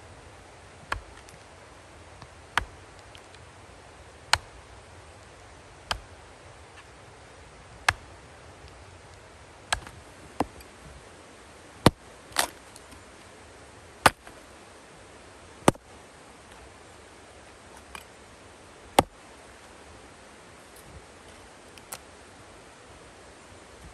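Axe chopping and splitting wood into firewood: sharp single chops roughly every one and a half to two seconds, a couple falling in quick pairs.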